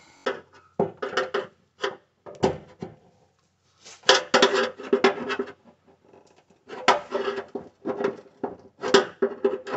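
A hand tool prying and scraping at the sheet-metal rim of an old electric cooktop set in a countertop, trying to work it free of the clips that hold it. It comes as groups of scrapes and clanks, and the metal top rings with each clank.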